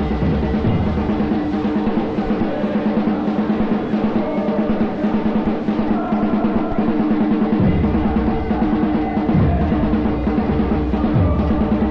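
Football supporters' drums beating a fast, steady rhythm with music over it. The deep bass drum drops out about half a second in and comes back about eight seconds in.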